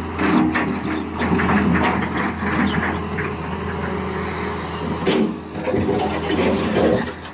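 Heavy truck engine running steadily, with scattered knocks and clatter.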